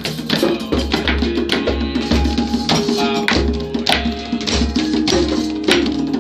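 Free group percussion: hand drums beaten in a loose rhythm, giving deep thumps and sharp slaps. Among them, a round metal drum struck with a mallet rings short held notes at a few different pitches.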